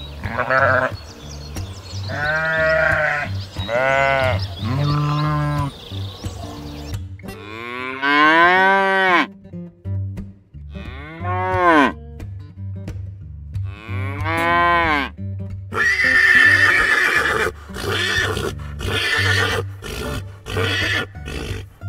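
A farm animal calling over and over, a run of short calls that each rise and fall in pitch, over steady background music.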